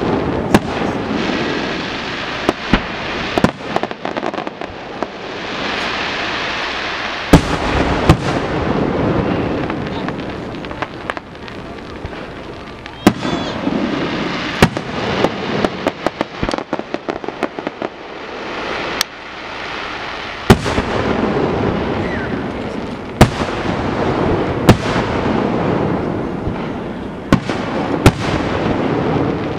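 Aerial fireworks display: shells bursting in a rapid, uneven series of sharp bangs, some in quick clusters, with dense crackling between them.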